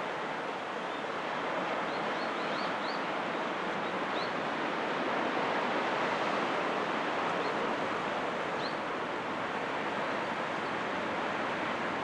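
Steady wash of ocean surf on rocks below, an even rushing sound that swells slightly midway, with a few faint high chirps.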